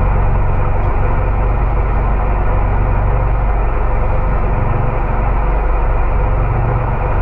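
Outrigger fishing boat's engine running steadily under way: a constant low drone with an even rushing noise over it.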